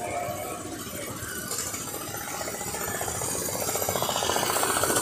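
Go-kart engine running with a fast, even pulsing. It grows steadily louder over the last couple of seconds as a kart comes past close by.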